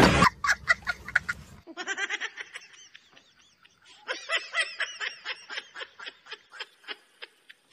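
Choppy, rapid laughter in quick short bursts, broken by a pause of about a second near the middle.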